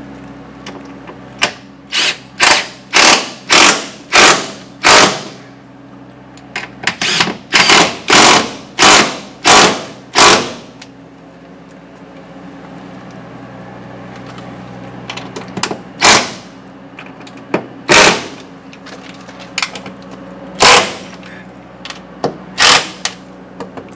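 Cordless drill/driver running screws through a wooden repair plank into a boat hull in short bursts: a quick run of about six, a pause, another run of about six, then four single bursts spread out near the end, as the fasteners draw the epoxied scarf joint down.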